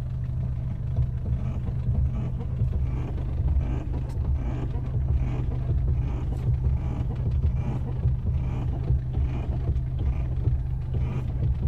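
VW Fox's engine idling with a steady low hum while the steering wheel is turned, giving a faint creak (rangido) from the steering that shows up as irregular light noises over the hum.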